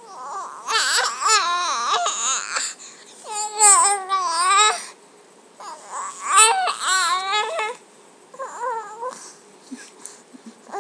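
Baby vocalizing in about four drawn-out, wavering whiny cries, with short pauses between them.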